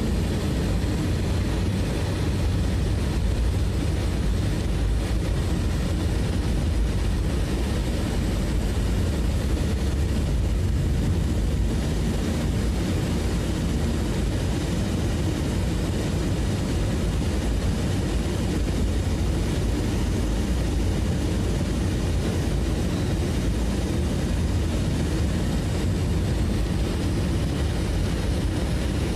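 Steady low rumble of a vehicle under way, an even engine-and-motion noise that holds constant without breaks.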